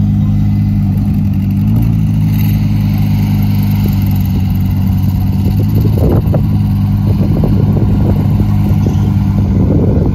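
Lamborghini Huracán EVO's V10 engine running steadily at low revs as the car rolls slowly by, with a brief rise in revs about two seconds in and light crackles from around the middle.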